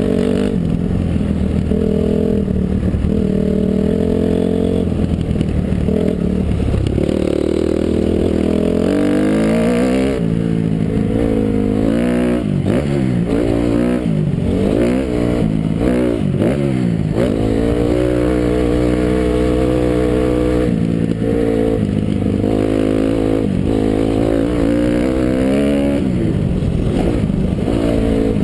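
2006 Honda CRF250R single-cylinder four-stroke motocross engine under load, its revs rising and falling again and again through the middle as the rider works the throttle and shifts, with steadier running before and after. Wind noise on the helmet-mounted camera runs underneath.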